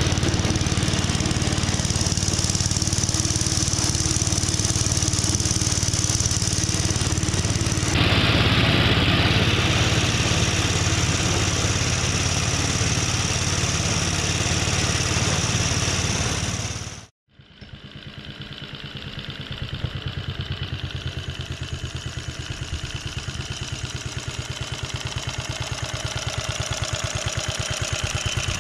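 Petrol engine of a Ransomes Marquis cylinder lawn mower running steadily while cutting. About 17 seconds in the sound cuts out abruptly for a moment, then the engine comes back quieter with a clear, even firing beat and grows steadily louder.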